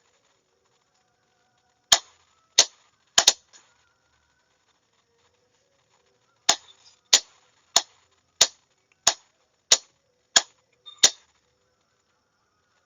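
Morse code being sent as a series of sharp clicks with no tone. A quick cluster of about four clicks comes around two seconds in, and after a pause eight evenly spaced clicks follow, roughly two-thirds of a second apart.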